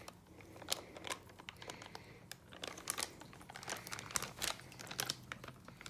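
Plastic bag crinkling and rustling as it is handled, a run of irregular sharp crackles.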